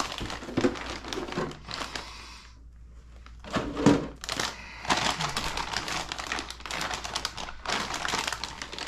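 Clear plastic kit-part bags crinkling and rustling as they are handled, one of them holding the truck's wheels and tires. It goes quieter for a moment about two seconds in, then a louder crackle comes about four seconds in and the rustling carries on.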